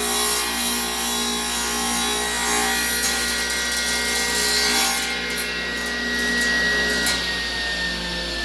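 Table saw running and its blade cutting into a small square of scrap wood, the cutting hiss ending about five seconds in. Near the end the motor's whine starts to drop in pitch.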